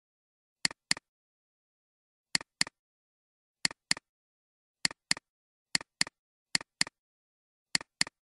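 Computer mouse double-clicking: seven quick pairs of sharp clicks about a second apart, with dead silence between, as folders are opened one after another.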